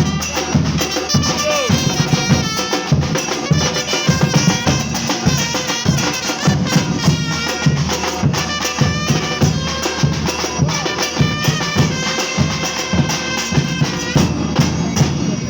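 Batucada percussion ensemble playing a steady groove: low bass drums beating a regular pulse under snares and other hand percussion, with a pitched melodic line over the top.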